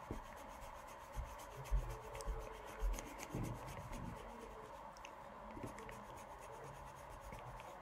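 A pen rubbing and scratching faintly on paper as a drawing is coloured in, with a few soft knocks about a second to three seconds in, over a faint steady hum.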